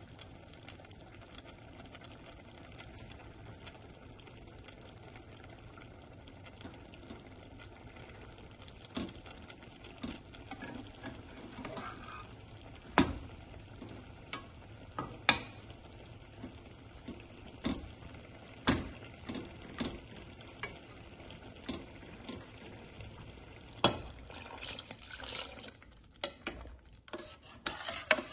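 Butter frying quietly under a grilled cheese sandwich in a nonstick frying pan, with a spatula scraping and tapping sharply against the pan over the second half as the sandwich is pressed and turned.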